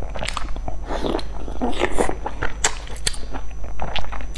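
Close-miked eating sounds: wet biting and chewing of a fried piece of food dipped in chili sauce, with many irregular sharp mouth clicks and crackles.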